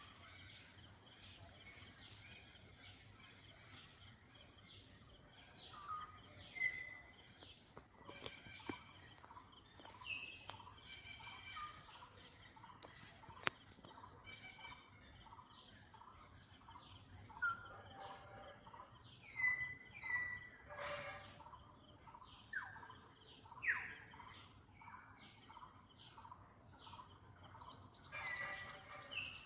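Birds chirping and calling in short notes over a faint, steady outdoor background. A run of quick chirps repeats about twice a second throughout, with louder single calls scattered through it and two sharp clicks near the middle.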